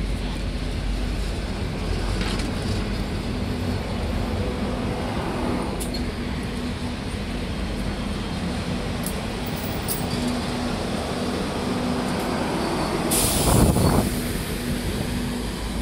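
Heavy vehicle's engine running with a steady hum, and a loud burst of hiss lasting about a second near the end.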